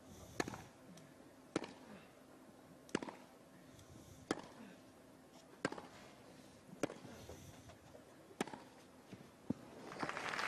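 Tennis rally: a ball struck back and forth by rackets, about seven sharp hits roughly one and a quarter seconds apart. Near the end, crowd applause swells up as the point ends.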